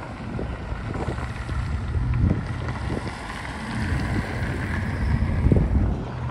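Cars driving slowly past, engine and exhaust sound swelling about two seconds in and again near the end, with wind on the microphone.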